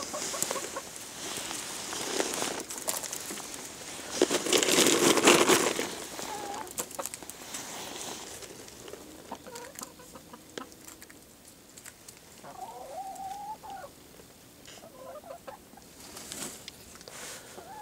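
Hens clucking with short calls scattered through as they peck at food, and one longer wavering call about two thirds through. Earlier there is a rustling noise, loudest about four to five seconds in.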